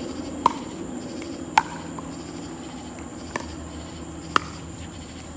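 Pickleball rally: four sharp pops of paddles striking the hollow plastic ball, one to two seconds apart. Behind them is a steady drone of night insects.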